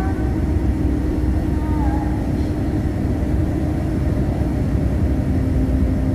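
Bus cabin noise: a steady low engine and road rumble with a constant hum.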